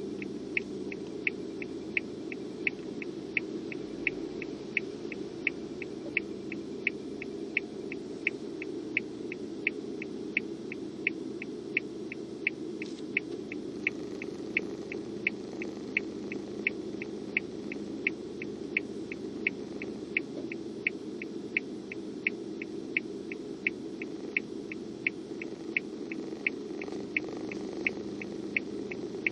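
Car turn-signal indicator ticking steadily, about two clicks a second alternating louder and softer, over the low steady hum of the idling car's cabin.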